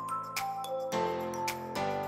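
Background music: short melody notes over held chords, with a light clicking beat; the chords change about a second in.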